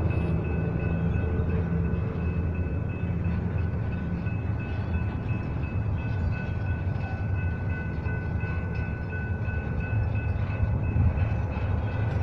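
Double-stack intermodal freight train's container well cars rolling slowly past with a steady low rumble, and a thin, steady high squeal from the train over it.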